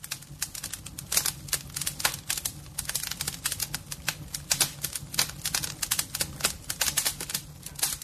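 Wood logs burning in a fireplace, crackling with dense, irregular pops and snaps over a low steady hum.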